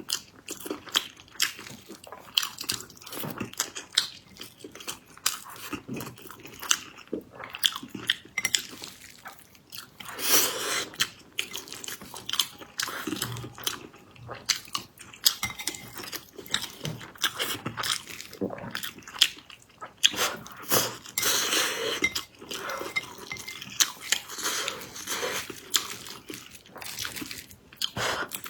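A person chewing soft, sticky food, with irregular clicks of cutlery against a dish.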